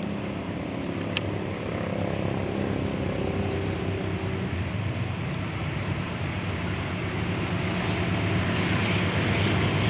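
Diesel locomotive hauling the Bangunkarta express train approaching, a steady engine drone and rumble that grows gradually louder.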